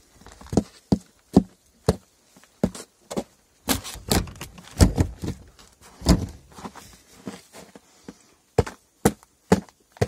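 Footsteps on snow and snow-covered concrete: a run of sharp, irregular steps and thuds, about two a second, loudest around the middle.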